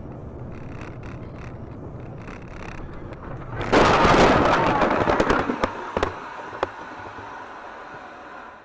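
Road noise heard from inside a moving car, then about three and a half seconds in a sudden loud car crash: a long crunching impact with rattling and knocks as the car tumbles, trailing off into scattered clicks and bangs.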